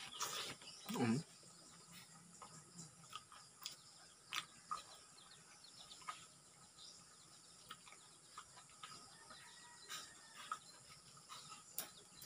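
Close mouth sounds of eating soft, juicy soursop flesh: biting and chewing, louder in the first second or so, then scattered wet clicks and smacks. Faint bird calls sound in the background.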